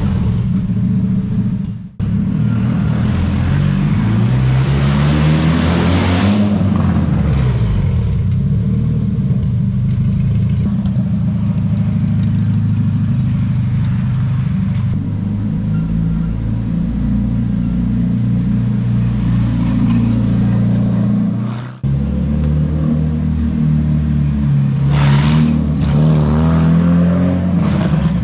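Engine of a bare-frame GT40 replica chassis being driven hard, its pitch rising and falling again and again as it accelerates and lifts off. The sound cuts out abruptly twice, about two seconds in and again past the twenty-second mark.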